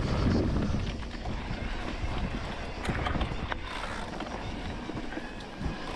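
Electric mountain bike rolling down a dirt trail: tyres on loose ground and the bike rattling, with a couple of sharp knocks over bumps about three seconds in, under steady wind noise on the microphone.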